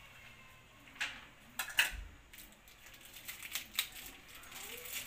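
A few light clicks and knocks of kitchenware being handled on the counter, the sharpest about a second in and twice just under two seconds in, with smaller ticks after.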